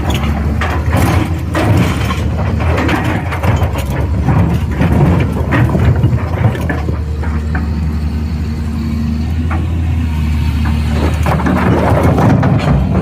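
Excavator's diesel engine running steadily under load, with frequent clanks and knocks from the machine working; the clatter is busiest in the first half and the engine hum steadier later on.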